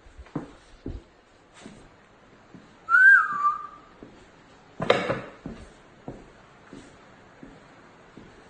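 Footsteps on a bare floor, with one short whistled note about three seconds in that rises, dips and levels off. A brief louder noise comes about five seconds in.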